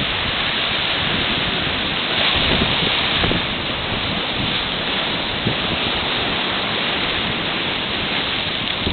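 Black Sea surf: a steady rush of breaking and washing waves, swelling slightly a couple of seconds in, with wind buffeting the microphone.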